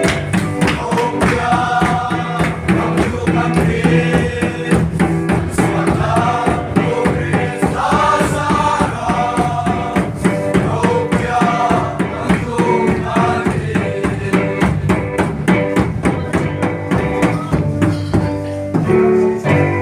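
Group of voices singing a melody together, accompanied by a steady, regular drum beat.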